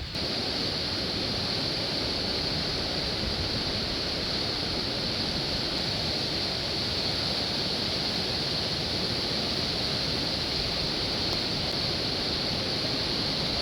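Whitewater rapids on a dam-release river rushing steadily, an even hiss that does not change.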